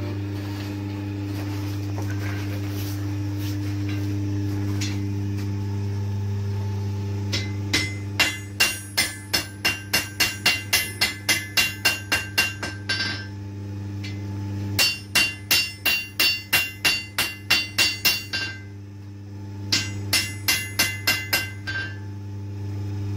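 Hand hammer forging a red-hot steel blade on an anvil: three runs of quick blows, about three a second, each with a bright metallic ring from the anvil, separated by short pauses. The hammering starts about seven seconds in, over a steady low hum.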